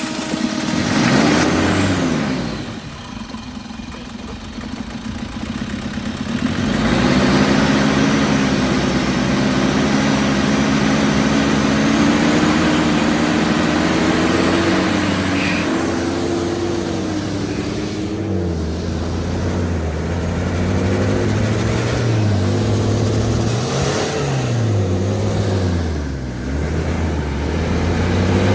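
A car engine running and revving, its pitch rising and falling. The note holds steady for a stretch, then goes up and down several times near the end as the throttle is worked.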